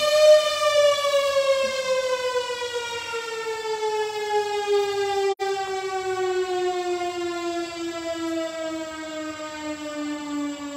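Mechanical warning siren winding down: one long tone that rises slightly at first, then falls slowly and steadily in pitch.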